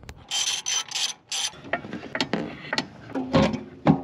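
Hand socket ratchet clicking in about four quick strokes, then scattered metal clicks and knocks of tools and parts, with two louder knocks near the end.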